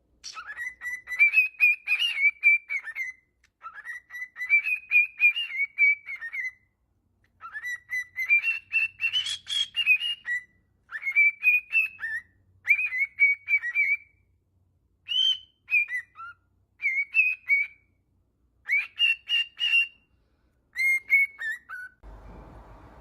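Pet parrot whistling in a series of warbling phrases, each one to three seconds long with short pauses between, the later phrases shorter.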